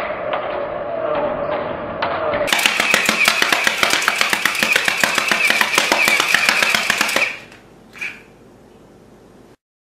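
Homemade rubber band machine guns firing. First a steady motor whine with scattered clicks as the barrel drum spins. Then, about two and a half seconds in, a higher whine with rapid, even clicking as bands are released in quick succession, which stops abruptly about seven seconds in; one more snap comes near the end.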